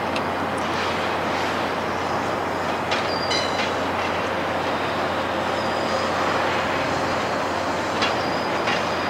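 GO Transit bilevel commuter train, led by its cab car, rolling out over the station trackwork: a steady running noise with wheels clicking over rail joints and switches, and a brief high wheel squeal about three seconds in.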